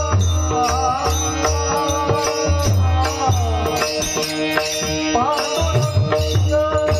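Devotional kirtan singing: a voice singing long, wavering ornamented phrases over steady held instrument notes and a regular hand-drum beat.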